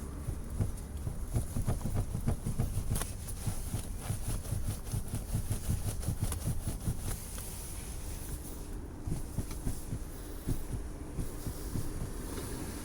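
Irregular knocking and rattling from the seat of a 2017 Renault Koleos, a fault knock in the seat, over the low rumble of the car on the road. The knocks come thick and fast at first and grow sparser in the second half.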